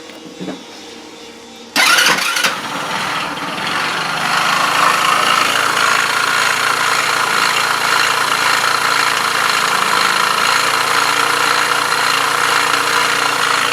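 The scooter's 157QMG 150cc four-stroke single starts about two seconds in and then runs with its variator, clutch and belt removed. A beating knock can be heard in it, even louder than before the strip-down, which the mechanic traces to a worn camshaft bearing.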